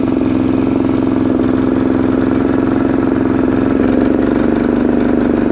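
Stump grinder's small petrol engine running steadily on wood gas fed under pressure into its carburetor, its pitch stepping up slightly about four seconds in.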